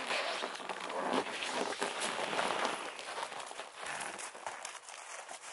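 A pot of water flung into air at about minus 40, flashing into a cloud of ice fog: a sudden whoosh with a crackling hiss that thins out after about three seconds.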